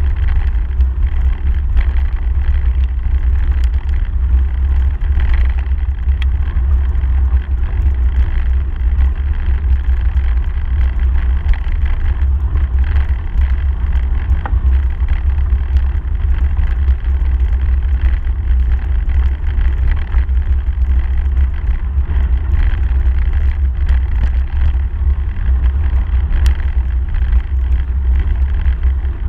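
Bicycle riding along a gravel path, heard from a handlebar-mounted camera: a steady, loud low rumble of wind and ride vibration on the microphone over the hiss of the tyre on gravel, with scattered faint clicks.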